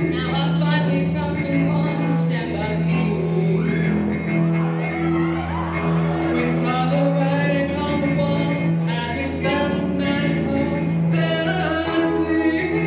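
A live pop duet: two singers take turns on microphone-amplified vocals over sustained chords from a Yamaha digital keyboard.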